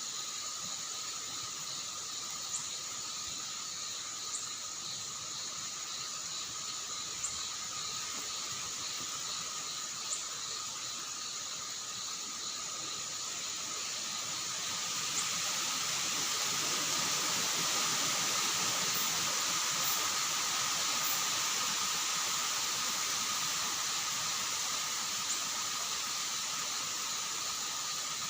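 Strong wind blowing with a steady rush that swells louder about halfway through and then eases a little. Under it runs a steady high chorus of crickets with a pulsing trill, and a few sharp ticks.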